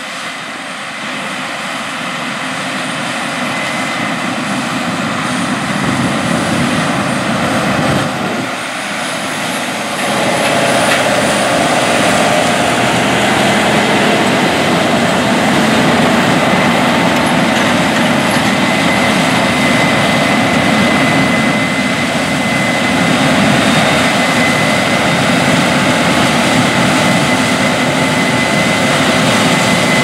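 Case IH 9240 Axial-Flow combine harvesting corn with a 16-row corn head: a loud, steady engine and threshing-machinery drone that builds over the first ten seconds and then holds, with a faint steady whine in the second half.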